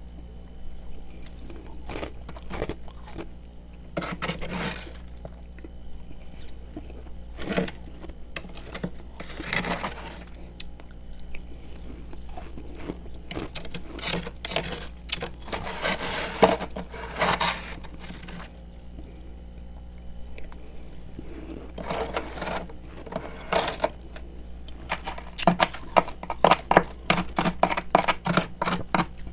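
Freezer frost crunched and chewed in the mouth, in bursts of crisp crackling crunches with pauses between. A steady low hum runs underneath.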